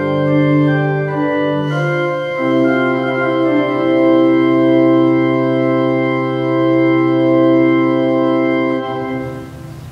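Church organ playing slow sustained chords, settling into one long held chord that fades away near the end.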